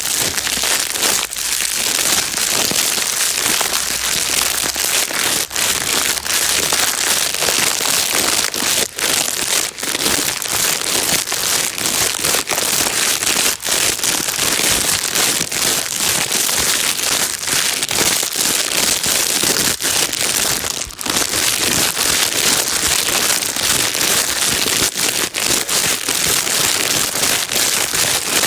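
A plastic bag being crinkled and crumpled without pause: a loud, dense, steady crackle made of many small sharp clicks, brightest in the upper range.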